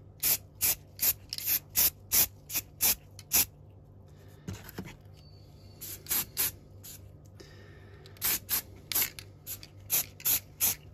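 Aerosol can of Chaos Black spray primer sprayed in short hissing bursts, about three a second, broken by a few pauses of a second or more.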